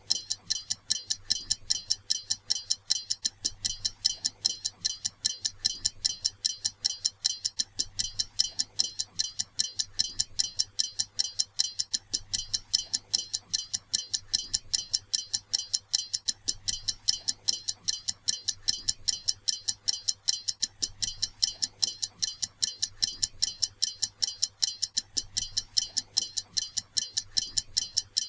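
A clock ticking steadily and quickly, about three to four even ticks a second, over a faint low hum.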